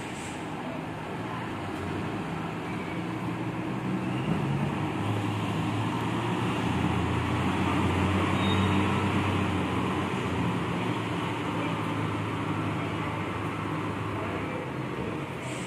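Diesel engine of a coach bus pulling out and driving past close by, its engine hum growing loudest as it passes and easing as it moves off.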